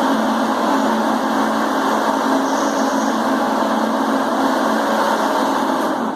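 Countertop blender running steadily at full speed, blending a liquid bread batter of milk, eggs and oil, then cutting off abruptly right at the end.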